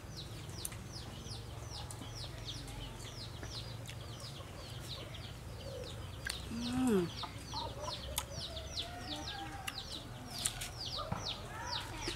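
Chickens: a steady run of high, falling peeps, about three a second, with a louder, lower cluck-like call about halfway through.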